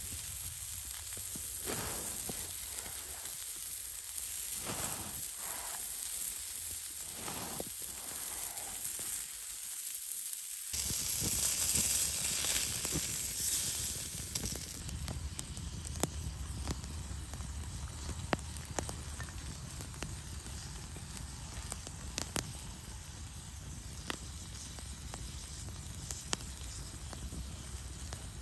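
A knife sawing through a crusty loaf of bread in a series of scraping strokes. About ten seconds in, a coiled sausage starts sizzling on a griddle over a wood fire, loudest for the first few seconds, with sharp pops from the burning wood now and then.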